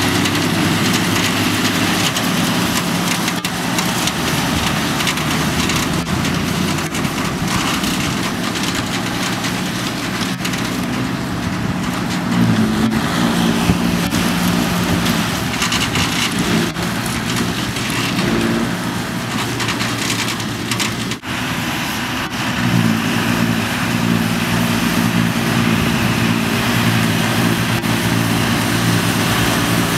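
Tractor diesel engines running steadily under load, with a PTO-driven Mengele trailed forage harvester picking up and chopping grass for silage. The engine tone shifts about 12 seconds in and again about 22 seconds in.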